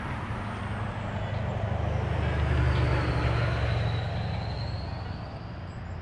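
A deep engine rumble passing by, swelling to its loudest about halfway through and then fading, with a faint high whine that drops in pitch and rises again.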